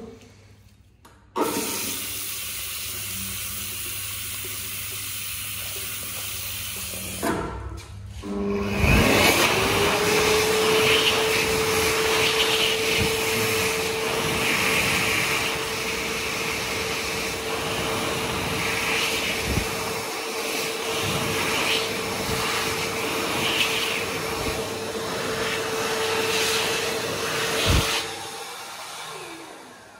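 Water runs from a sink tap for about six seconds. Then an ASi Turbo-ADA (Turbo-Slim) hand dryer starts, its whine rising quickly to a steady pitch, and blows loudly for about twenty seconds before winding down with a falling whine near the end.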